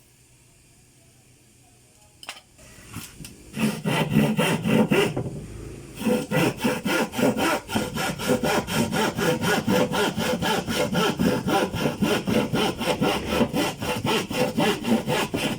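A few light knocks, then a handsaw starts cutting with quick, even back-and-forth strokes that keep going after a brief pause.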